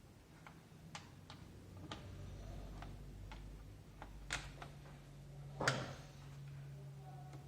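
Scattered light clicks and taps of plastic keyboard parts being handled while the cut-down keyboard section is connected, with one louder knock about five and a half seconds in. A faint low hum runs underneath, steadier from about four seconds in.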